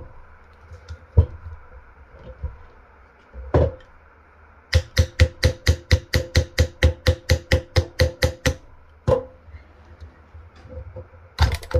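Rapid metal-on-metal tapping on a Mercury marine distributor: a run of about eighteen sharp strikes with a ringing note, about four or five a second, lasting about four seconds from about five seconds in, as parts are knocked loose to get the rotor out. A few single knocks come before and after the run.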